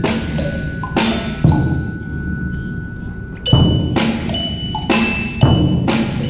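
Student percussion ensemble playing: ringing bell-kit (glockenspiel) notes over bass drum and snare strokes. The playing thins out in the middle, then strong drum hits return about three and a half seconds in.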